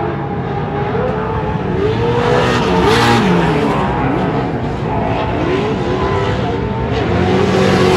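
Race vehicle engines at an off-road race, several revving up and down over one another, with a louder rush about three seconds in as one passes close.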